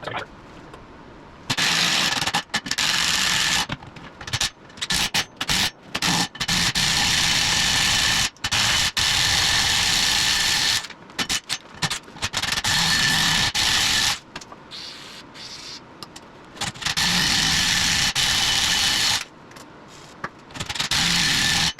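Power impact wrench run in repeated bursts of one to three seconds with short pauses between, tightening nuts one after another in a star pattern.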